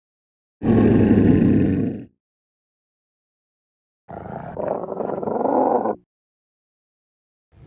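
Two wolf growls, a loud one lasting about a second and a half and, after a pause of about two seconds, a quieter one lasting about two seconds, each cutting off sharply.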